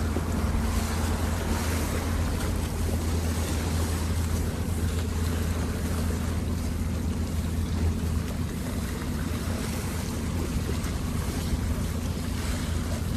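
Small sea waves washing against the rocks of a seawall, under a steady low rumble of wind buffeting the microphone.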